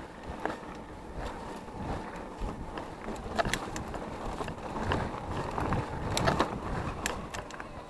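Mountain bike rolling over a rough dirt singletrack, with scattered clicks and rattles as the bike jolts over bumps, against a steady rush of wind on the microphone.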